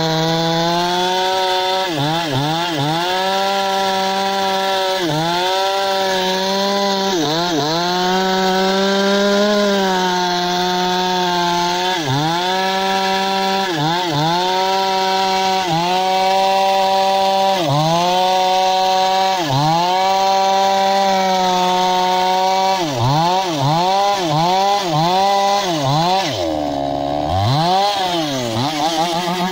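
Two-stroke gasoline chainsaw running at high revs while cutting through a log, its pitch dipping and recovering every couple of seconds as it works in the wood. Near the end it dips several times in quick succession, drops briefly to a low idle, then revs up again.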